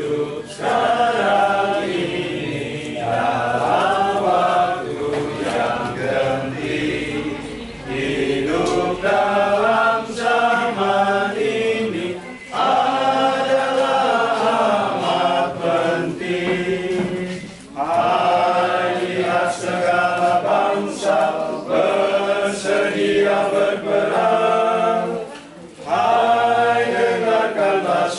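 Small group of voices singing a hymn in Indonesian together, unaccompanied, in long phrases with short pauses between them.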